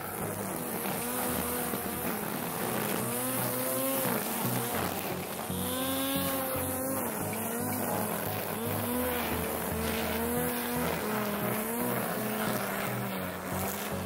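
String trimmer running as its spinning line cuts grass along stone edging, the motor's pitch wavering up and down as it meets the grass.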